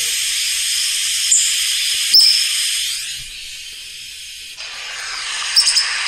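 Field recording of a Streak-headed Antbird (Drymophila striaticeps) calling: a few short, high notes over heavy recording hiss. The clearest note comes about two seconds in, and a quick double note near the end.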